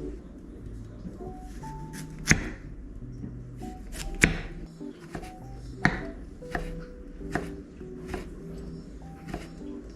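Background music with a kitchen knife chopping on a cutting board: a series of sharp, separate strikes about a second or so apart, the loudest two about two and four seconds in.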